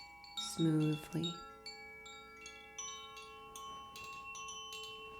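Chimes struck again and again, their clear metallic tones overlapping and ringing on, as in a sound bath.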